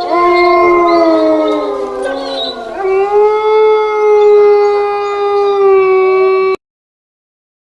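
A ringtone playing long, drawn-out wailing notes that waver and slide down in pitch, then settle on one steady held note. It cuts off abruptly about six and a half seconds in, leaving dead silence.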